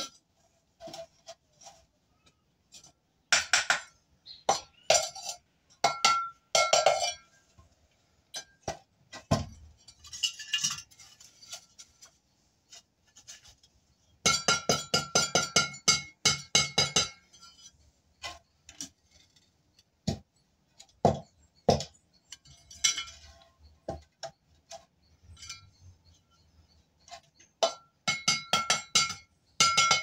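Steel mason's trowel clinking against brick and the floor in bursts of rapid taps, its blade ringing with each burst.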